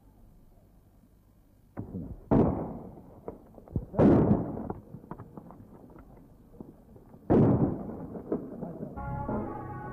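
Several loud, sudden bangs at irregular intervals, each dying away with a ringing tail, with small crackles in between. Music with held notes comes in near the end.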